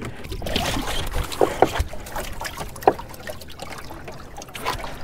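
Water trickling and splashing, with a few short knocks and bumps against the boat's fiberglass deck.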